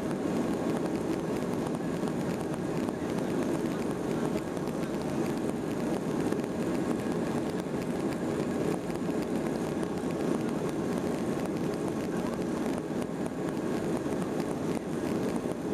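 Steady cabin noise of a Boeing 737-800 taxiing, its CFM56 engines running at low thrust with no spool-up, an even rumble that holds the same level throughout.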